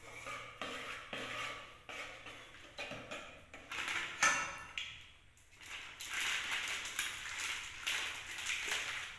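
Wire whisk beating pancake batter in a nonstick pot, its wires clicking and scraping against the pot in repeated quick strokes, with a sharp ringing tap about four seconds in and faster, denser scraping later on.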